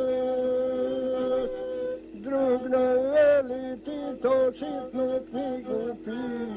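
Gusle, the one-string bowed folk fiddle, played with a man singing to it. First a long held note, then from about two seconds in short sung syllables in quick bending steps, in the style of a South Slavic epic song.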